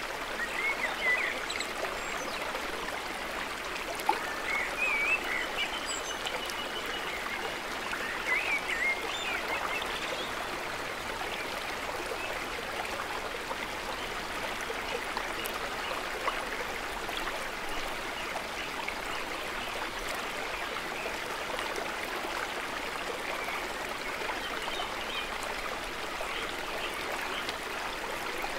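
Shallow woodland stream running over rocks: a steady rushing and trickling of water, with a few short high chirps in the first ten seconds.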